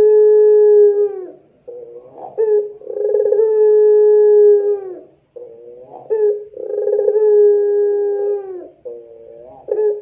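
Puter pelung (a long-calling strain of ringneck dove) cooing: drawn-out coos of about two seconds each, held on one pitch and dropping at the end, with short stuttering notes leading into each. The coos repeat about every three and a half seconds.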